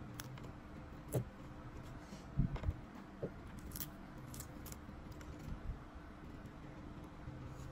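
Leaf and plastic wrapping being peeled off a nem chua (fermented pork roll) by hand, with faint scattered crackles and small clicks over a faint steady hum.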